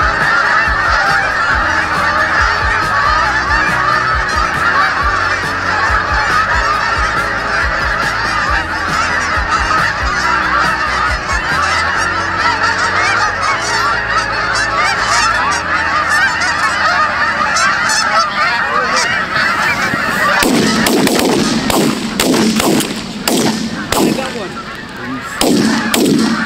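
A huge flock of geese calling overhead, a dense, unbroken din of many overlapping honks. About 20 seconds in the calling thins and is broken by a run of sharp, sudden sounds.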